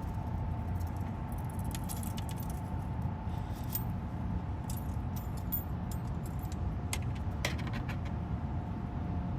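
Small metal fishing tackle clicking and lightly rattling as it is handled, in scattered short clicks over a steady low rumble and a faint steady hum.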